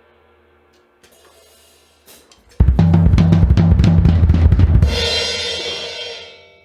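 Yamaha Beech Custom drum kit: after a few light strokes, a loud, fast fill across the drums with bass drum runs for about two seconds, then ends on a cymbal crash that rings out and fades away.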